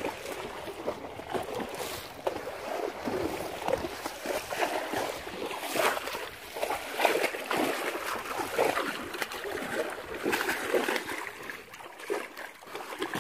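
Horse wading in shallow pond water, its legs churning and splashing through the water, with several louder splashes as it paws at the surface.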